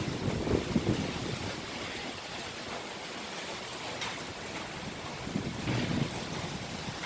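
Typhoon wind rushing steadily, with gusts buffeting the microphone briefly near the start and again about six seconds in.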